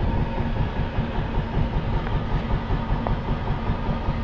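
Small boat's engine running steadily under way, with a constant low rumble and a faint steady hum, mixed with wind on the microphone and water rushing past the hull.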